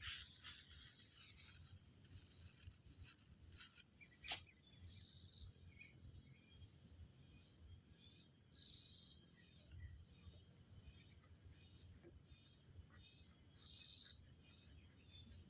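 Faint outdoor ambience: a steady, high-pitched insect trill like crickets, with three short bird calls spaced about four seconds apart and a single sharp click about four seconds in.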